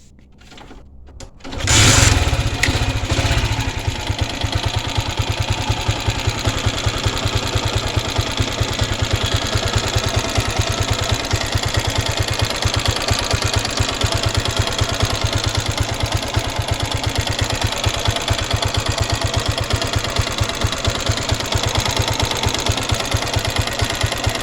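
Honda CG Titan 1999 single-cylinder four-stroke motorcycle engine starting a little under two seconds in and then idling with a rapid, even beat. The owner diagnoses two noises in it: tapping valves that need adjusting and a slapping piston skirt from a worn piston.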